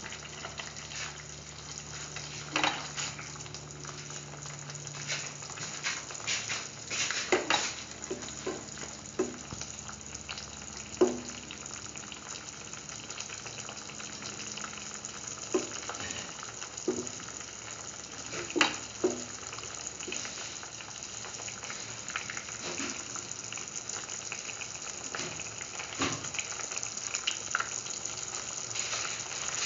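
Hausa potato pieces simmering in a little broth in a steel pan: a steady sizzling, bubbling hiss as the liquid boils down, with occasional sharp pops and clicks.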